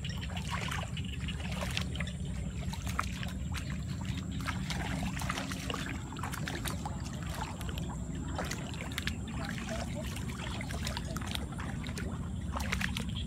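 Feet wading through shallow muddy water, splashing and sloshing irregularly over a steady low rumble.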